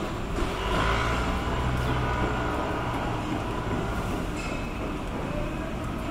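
A motor vehicle's engine rumble with a faint whine, swelling about a second in and fading over the following seconds, over steady street noise.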